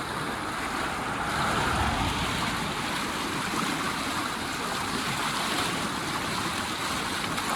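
River in flood, fast high water rushing steadily.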